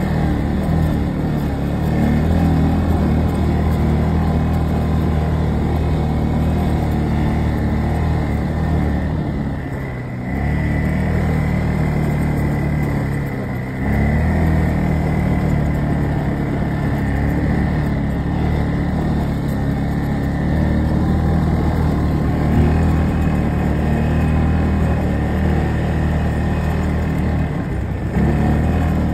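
ATV engine running at a steady throttle while driving. It eases off briefly twice, about ten and fourteen seconds in, and again near the end.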